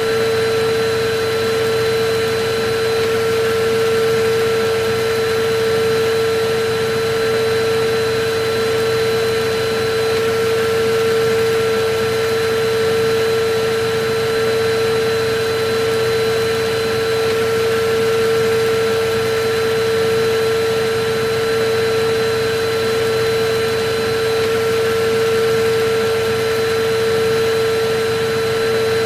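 Electric vacuum cleaner running steadily: a constant motor hum with a fainter higher whine over an even rush of air, unchanging in pitch.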